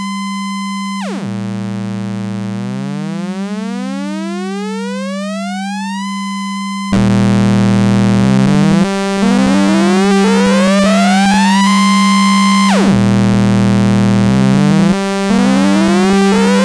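Two Buchla modular-synth oscillators: a steady low drone from the principal oscillator under the modulation oscillator sweeping upward in pitch. For the first half the sweep is unsynced and glides smoothly. About seven seconds in the sound gets louder and switches to hard sync, so the rising sweep jumps in steps where whole-number frequency ratios line up, heard like an ascending pentatonic scale. Near the end it drops back and climbs in steps again.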